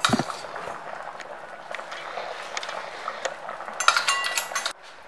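A ladle stirring thick simmering bean curry in a cooking pan over a steady hiss, with a knock at the start and a run of metal clinks against the pan about four seconds in.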